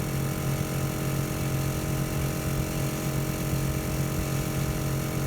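Smittybilt 2781 portable air compressor running steadily under load while inflating a tire, with a steady low hum and a rattle from its body shaking against the rock it sits on.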